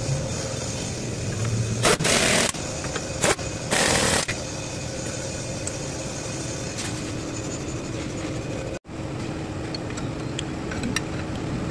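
Two short, loud hissing bursts, about two and four seconds in, over a steady background hum, followed by a few faint ticks.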